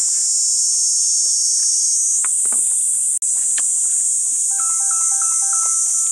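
A dense, steady, high-pitched chorus of insects chirring. About four and a half seconds in, a mobile phone ringtone starts up, a stepped electronic melody announcing an incoming call.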